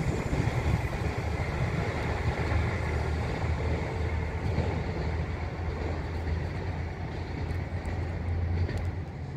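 Steady low rumble of passing vehicles, easing off slightly near the end.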